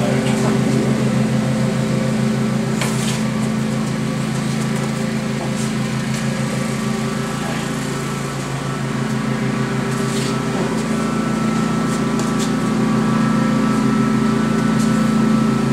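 Steady mechanical hum of a running motor, with a few brief knocks.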